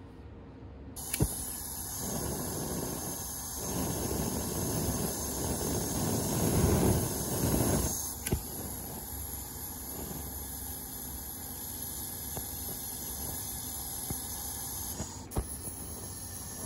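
Steady hiss of gas and air flowing through a small 3D-printed resin valveless pulse jet, with surges of blown air that swell louder a few seconds in and a few sharp clicks. The engine does not catch and run as a pulse jet.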